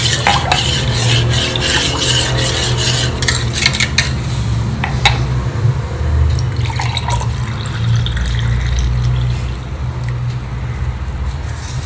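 Metal spoon stirring beetroot-carrot-tomato juice in a stainless steel pot, clinking against the sides for the first few seconds. The juice is then poured from the pot into a glass. A steady low hum runs underneath.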